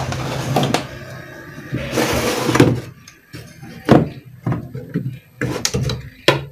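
Knocks and clicks from handling an opened CRT TV's circuit boards and plastic cabinet while cable connectors are pulled off, several sharp knocks in the second half, the loudest about four seconds in. Before that a low humming noise swells and stops about three seconds in.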